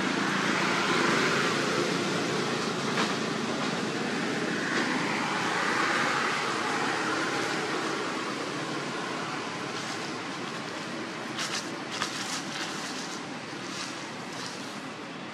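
Steady rushing outdoor background noise, easing off a little in the second half. About eleven seconds in, and again near the end, come a few short crackles of dry leaf litter as a macaque digs with its hands.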